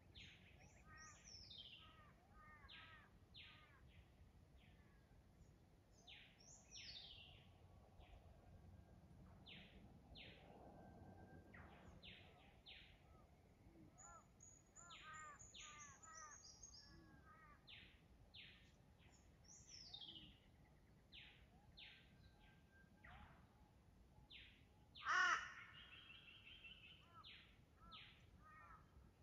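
Winter dawn chorus of many forest birds, mostly faint: short repeated calls and descending whistled notes overlap, with one much louder call about 25 seconds in.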